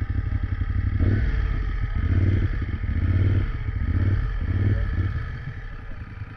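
Motorcycle engine pulling away, the throttle opened and eased in several quick surges, then dying down near the end.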